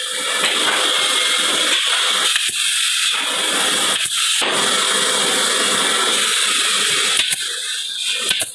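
Woodworking factory machinery running, a loud, steady, dense hissing noise.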